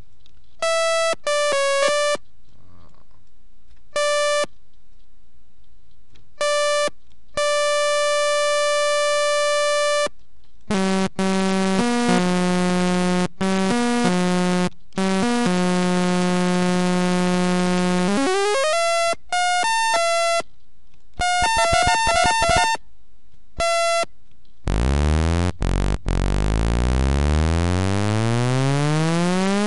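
Native Instruments Massive software synthesizer playing a bright, buzzy Dirty Dutch lead: short stabbed notes, then held notes and chords. Near the end comes one long note that glides steadily upward in pitch as an envelope ramps the oscillator's pitch.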